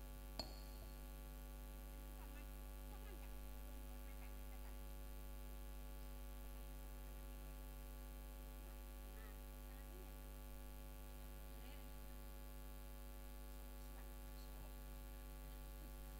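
Steady electrical mains hum with many overtones, with a short click about half a second in and faint voices now and then underneath.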